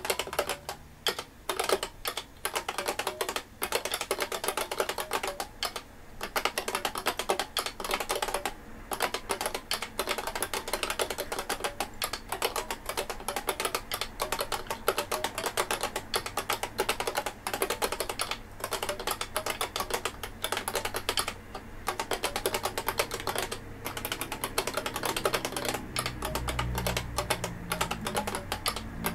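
IBM Beamspring 5251 keyboard being typed on steadily, its beam-spring key switches clacking in fast runs broken by short pauses.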